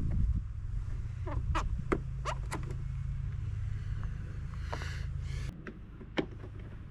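Sharp plastic clicks and knocks as the generator's plastic housing panels are handled and worked loose, over a low rumble that stops suddenly about five and a half seconds in. A short scraping rasp comes just before the rumble stops.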